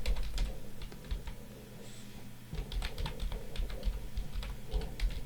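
Typing on a computer keyboard to enter a password: runs of quick key clicks, with a short pause about two seconds in.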